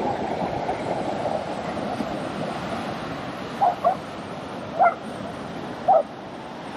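A steady rush of beach surf and traffic, with a dog barking four short barks about halfway through, the first two close together.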